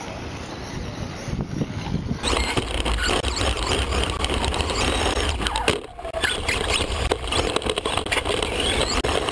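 Remote-control racing cars running: motor whine rising and falling in pitch as the throttle changes, over steady tyre and motor noise.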